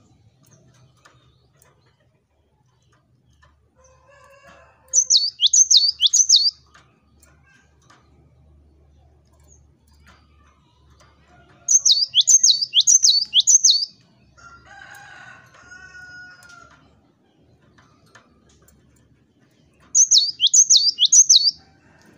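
Cinereous tit singing: three bursts of high whistled notes, each a quick run of four or five notes that sweep sharply downward, several seconds apart.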